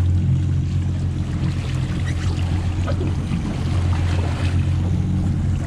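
Steady low hum of a sportfishing boat's engine, with wind and water noise over it.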